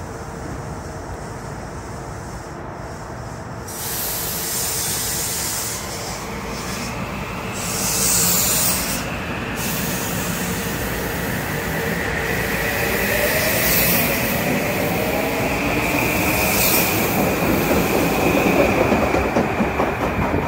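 Metro-North M8 electric multiple unit pulling out of the station, its traction motors whining and rising in pitch as it picks up speed, over the rumble and clatter of its wheels on the rails. Short spells of hissing come in the first half.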